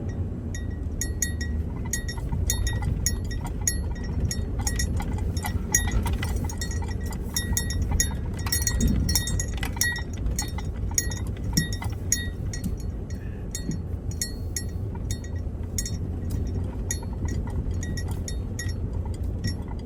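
Vehicle running over a rough road, a steady low rumble inside the cabin, with small metal pieces jingling and clinking irregularly as they shake.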